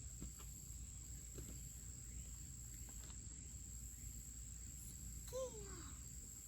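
Faint, steady high-pitched trill of crickets in the background. About five seconds in comes a short, high vocal sound from a toddler that falls in pitch.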